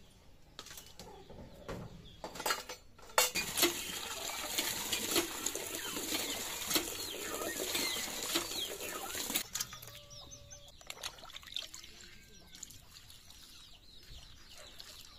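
A few knocks, then water gushing from a cast-iron hand pump into a plastic bucket from about three seconds in until about nine and a half seconds, when it stops. Hens clucking faintly in the quieter part after.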